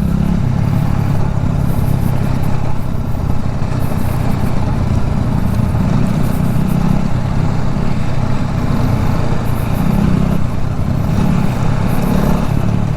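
TVS Apache motorcycle's engine running steadily under way while riding off-road, its note rising and easing slightly over a continuous rough rumble.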